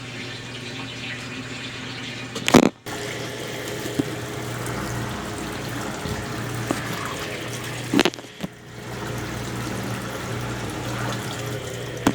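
Consul Facilite 10 kg top-loading washing machine in its wash stage: water sloshing through the clothes over a steady motor hum. Two loud short knocks come about two and a half seconds in and again about eight seconds in, each followed by a brief dip in the sound.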